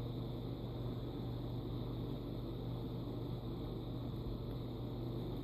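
Steady low hum with a faint hiss, unchanging throughout, with no distinct handling clicks.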